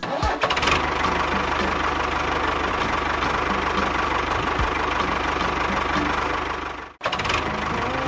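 Tractor engine starting and running steadily with an even, regular knock. It dies away about seven seconds in and starts up again straight after.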